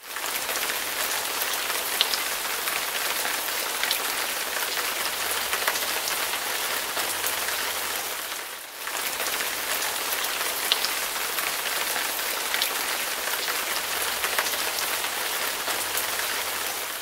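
Steady rain-like hiss with scattered light ticks. It dips briefly about halfway through and begins to fade near the end.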